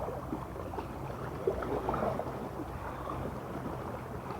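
Harbour-side outdoor ambience: a steady low hum with a faint background hiss and scattered light clicks.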